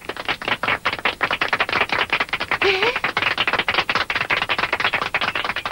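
A small group of people clapping their hands, starting suddenly and running on in quick, uneven claps.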